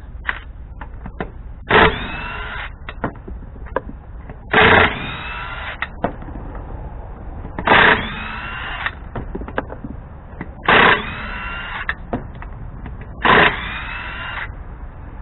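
18-volt cordless impact wrench spinning off 21 mm wheel lug nuts: five loud bursts of hammering whine, each under a second, about three seconds apart, one per lug nut. Small clicks and knocks of handling between the bursts.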